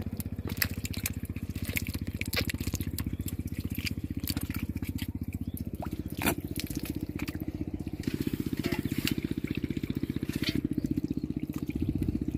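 Wet mud squelching and water splashing and dripping as hands grope through a drained pond bed for fish, with many small sharp clicks and splashes. Under it a small engine chugs steadily in the background.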